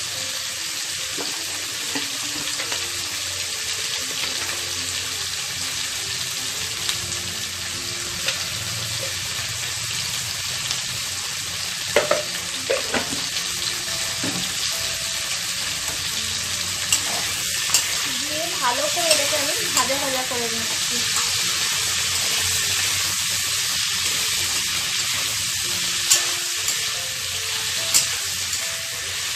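Drumstick and potato pieces sizzling steadily as they fry in oil in a kadai, with a few sharp clicks and knocks from stirring, mostly in the second half.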